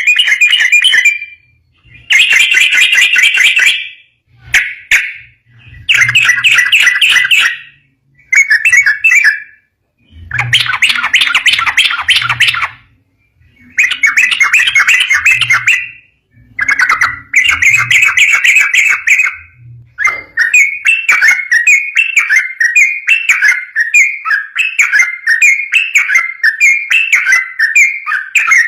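Yellow-vented bulbul (trucukan) singing loud, rapid chattering phrases of a second or two with short pauses between them, then from about two-thirds of the way through an unbroken run of quick repeated notes.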